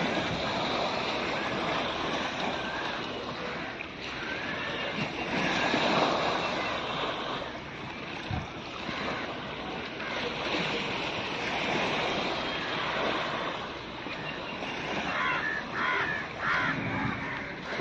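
Sea waves washing ashore with wind on the microphone, and a few short calls near the end.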